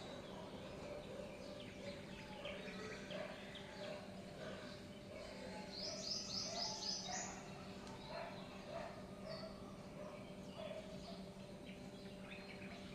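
Small birds chirping and twittering, with a quick run of about five high descending notes in the middle, over a steady low hum.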